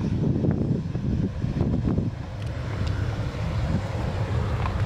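Boeing 737-800's CFM56 jet engines at taxi power, a low rumble, mixed with wind buffeting the microphone.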